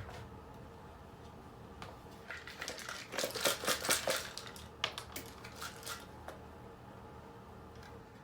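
Alarm clock crackling and clicking: a dense run of rapid, sharp crackles about two seconds in, then a few more separate clicks around five to six seconds.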